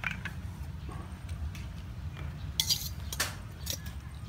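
Metal forks and picks clinking against snail shells and a stainless steel bowl as snails are picked apart. Several sharp clinks, the loudest a little past halfway, over a steady low rumble.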